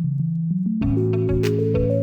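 Ambient house music: synthesizer notes stepping down in pitch, then a fuller chord with a light beat coming in just under a second in.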